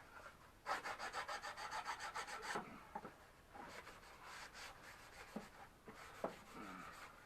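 The rough edges of 6 mm plywood pieces being rubbed down by hand with an abrasive, in quick back-and-forth strokes of about six a second. The strokes come in a burst about a second in, then follow as lighter, slower passes.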